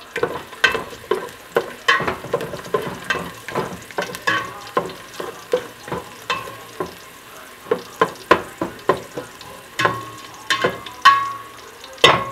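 Chopped garlic frying in oil in a stainless steel pot, stirred with a spoon that scrapes and knocks against the pot again and again, a few strokes a second, over a light sizzle. A few knocks near the end are louder and ring briefly.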